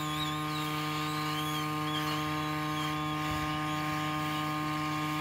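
Hot air rework gun blowing onto a phone circuit board, a steady electric hum with a faint wavering high tone above it, as the board is heated to desolder the SIM card holder.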